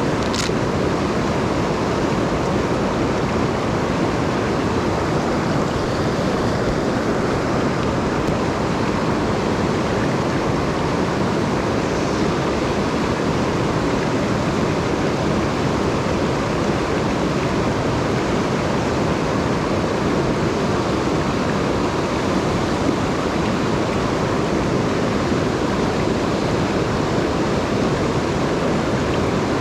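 Steady rush of a mountain stream running high and swollen after rain.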